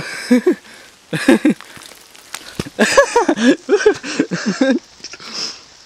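A man's short grunts and breathy vocal noises of exertion, in a string of brief syllables that bunch together in the middle, with heavy breathing close on the microphone.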